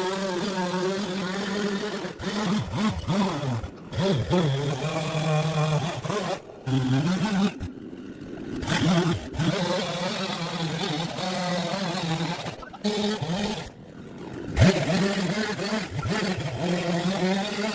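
An engine running and revving, its pitch rising and falling, with a few short breaks.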